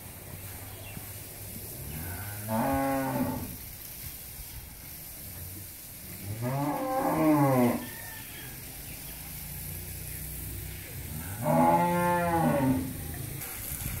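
Dairy cows mooing three times, each call a second or so long and rising then falling in pitch, the last two loudest.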